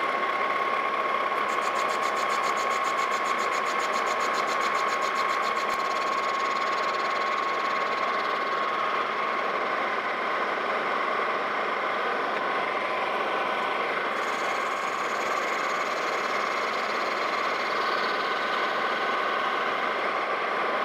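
Lodge & Shipley metal lathe running while a tool faces off a spinning brass nut blank, a steady mechanical whine with cutting noise, sped up two and a half times. A fast, even ticking runs for the first few seconds; the part has a lot of runout, so the cut is interrupted.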